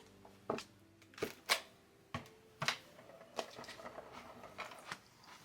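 Sharp clicks and taps of hard plastic toy parts being handled, about seven separate clicks spread irregularly over a few seconds.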